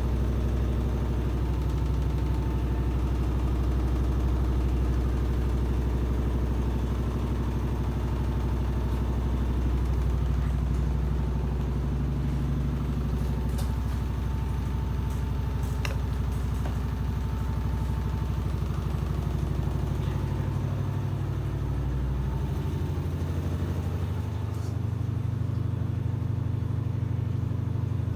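Washing machine running with a steady low motor-and-drum hum; the pitch of the hum shifts about two-thirds of the way through, with a few faint clicks before that.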